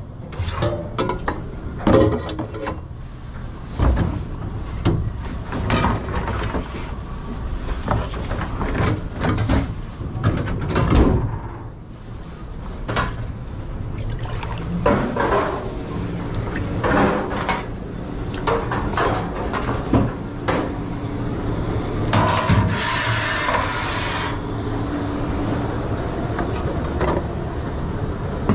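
Dishwashing in a commercial kitchen: dishes, pans and utensils clattering and knocking, with many sharp knocks in the first dozen seconds, over a steady low hum. A hiss lasting about two seconds comes near the end.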